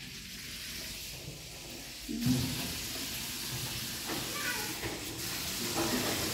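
A steady hissing noise that grows louder about two seconds in, with faint voices in the background.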